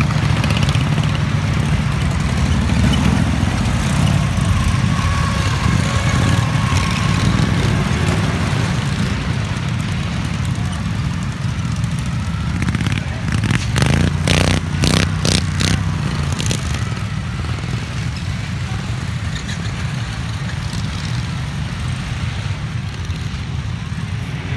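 Several racing ride-on lawn tractor engines running together, a steady low drone. A short run of sharp knocks comes a little past halfway through.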